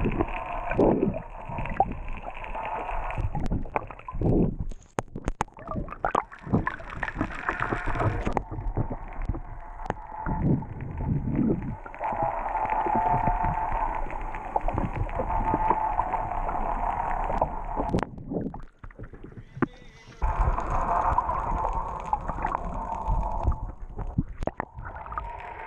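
Muffled water noise picked up by an action camera held underwater: gurgling and sloshing with scattered sharp clicks and knocks, and a steady hum in the second half.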